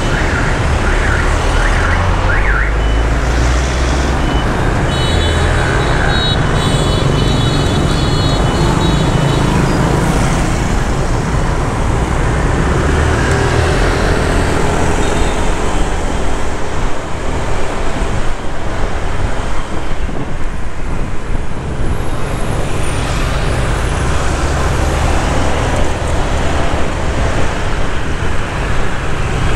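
Street traffic and road noise heard from a moving motorbike: a steady, loud noise with a low rumble underneath. A high electronic tone sounds for about four seconds, starting about five seconds in.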